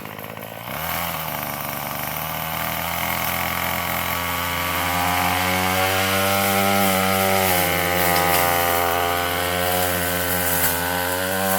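Gas weed eater's two-stroke engine running at high speed, coming in about a second in and holding a steady pitch that wavers slightly up and down.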